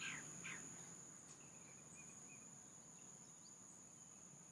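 Faint outdoor ambience: insects keeping up a steady high-pitched drone, with a few soft bird chirps about two seconds in.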